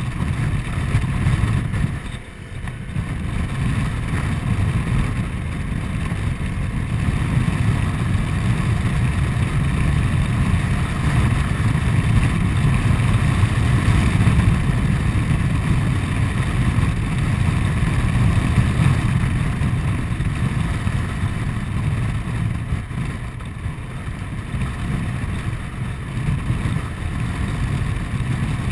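Honda Forza 125 scooter's single-cylinder four-stroke engine running at road speed, mixed with wind noise. The sound dips briefly about two seconds in and again near the end.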